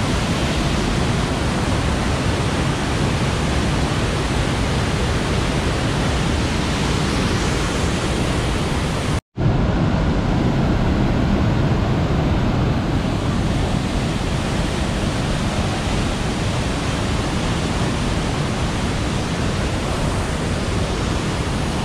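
Steady rush of a waterfall, loud and even, broken by a brief cut to silence about nine seconds in before it resumes.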